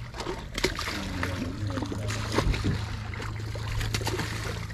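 A hooked red drum thrashing and splashing at the water's surface beside a landing net, with repeated clicks and knocks from the fishing rod and reel being handled close by, over a low steady hum.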